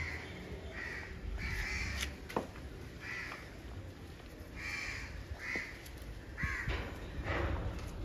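Crows cawing: a string of short calls, roughly one every second, over a low background rumble.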